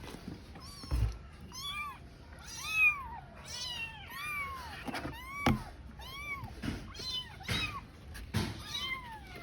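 Tiny kitten meowing over and over, about a dozen short high-pitched cries, each rising and then falling in pitch: the distress calls of a kitten separated from its mother. A soft thump about a second in and a sharp click midway.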